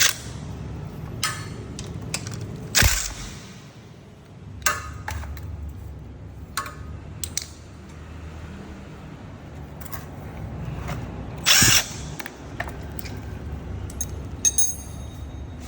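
Impact wrench hammering in several short bursts over a steady low hum. The loudest and longest burst comes about three quarters of the way through.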